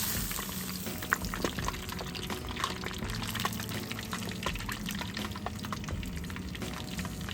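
Hot deep-frying oil sizzling and crackling with many small irregular pops as food fries in it.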